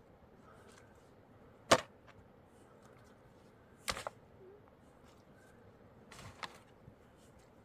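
Scattered sharp knocks: one loud knock about two seconds in, a quick double knock near four seconds, and a softer clatter a little past six seconds.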